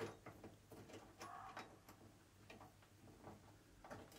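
Faint small clicks and taps of the car aerial's fittings and cable being handled, with a deer barking faintly a few times.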